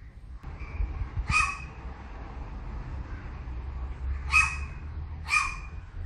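A crow giving short, bark-like calls, three in all: one about a second in, then two close together near the end. A steady low rumble runs underneath.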